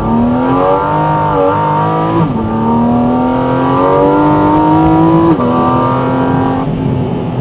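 Porsche 718 Cayman GT4 RS's naturally aspirated 4.0-litre flat-six revving hard under acceleration, its pitch climbing and then dropping suddenly at two quick upshifts, about two and five seconds in.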